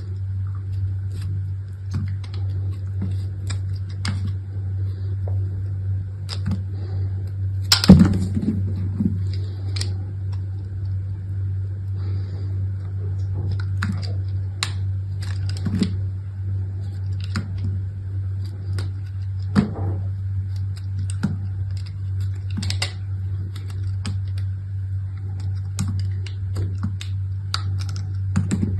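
Hands unwrapping soap: scattered short clicks and crinkles of the packaging being handled, with a sharper snap about eight seconds in. A steady low hum runs underneath.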